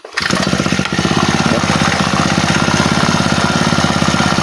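Honda GX35 four-stroke brush cutter engine catching on the first pull right at the start and running steadily, its new replacement carburetor fitted to cure hard starting.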